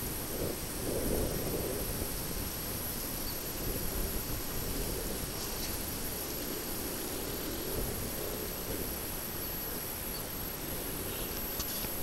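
Steady outdoor background noise: a low rumble and hiss with no distinct event standing out.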